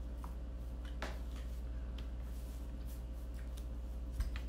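A steady low hum under faint clicks and rustles of hands picking apart grilled chicken and rice on a table, with a soft bump about four seconds in.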